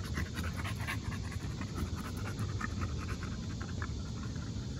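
American bully dog panting in quick, even breaths, several a second, hot from running around.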